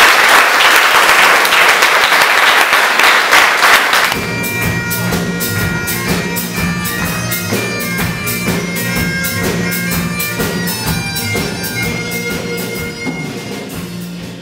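Audience applauding and cheering. About four seconds in it gives way to Celtic band music, a steady drone under a melody, which slowly gets quieter.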